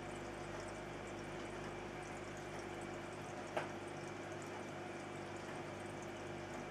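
Aquarium water moving steadily, as from a running filter or bubbling air line, with a low steady hum. A single short click about three and a half seconds in.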